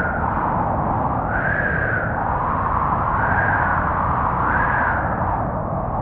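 Wind sound effect: a steady rushing blow with a whistling tone that rises and falls in pitch every second or two.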